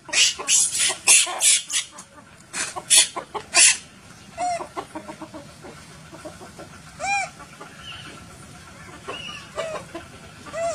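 Rooster clucking and squawking in short arched calls. The first few seconds carry a quick series of loud, harsh bursts, the loudest part.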